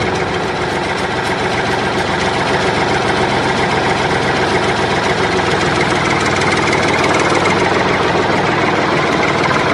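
Swaraj 742 XT tractor's three-cylinder diesel engine running hard under heavy load, pulling hard enough to lift the front wheels off the ground. The engine note is steady and grows slowly louder.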